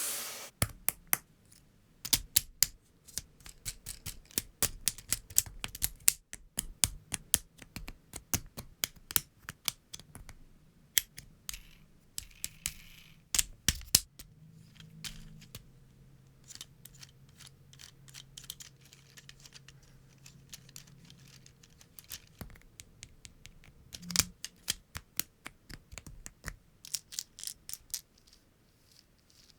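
LEGO Technic plastic parts being handled and pressed together, giving many sharp, irregular clicks and snaps, some in quick runs, with light rattling of loose pieces.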